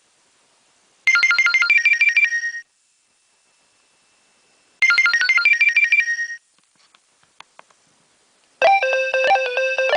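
Nokia 2300 mobile phone ringtone: a short, fast phrase of high beeping notes, played twice about three and a half seconds apart. A few faint clicks follow, and near the end a different, lower multi-note ringtone melody starts.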